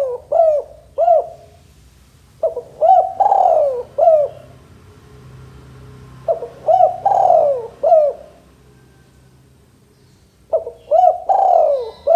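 Male spotted dove cooing in repeated phrases about every four seconds. Each phrase is a few short rising-and-falling coos around one longer falling note.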